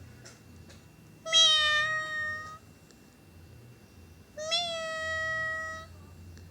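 A cat meowing twice: two long, drawn-out meows about three seconds apart.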